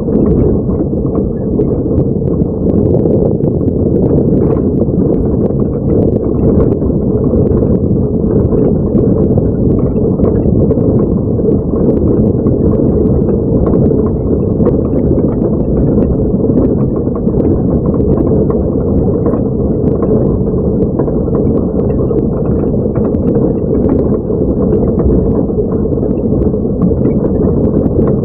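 A truck's engine running steadily under load, heard from inside the cab as the truck drives a rough dirt track, with many small rattles and knocks from the cab throughout.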